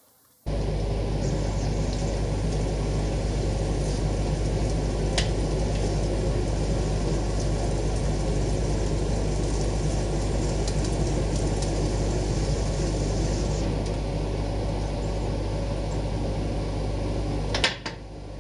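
Metal lathe running while a 6 mm counterbore cutter feeds into a drilled steel bar: a steady motor hum starts about half a second in, with a sharp tick about five seconds in and another near the end, where the sound drops away.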